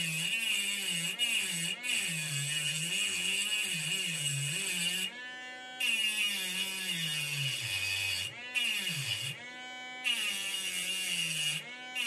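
Mini rotary tool (precision Dremel) with a cutting disc grinding through the metal shield of a phone motherboard. A high grinding hiss comes in long stretches that break off briefly about five seconds in and a few more times after. Under it, the motor's hum wavers and dips in pitch as the disc bites into the metal.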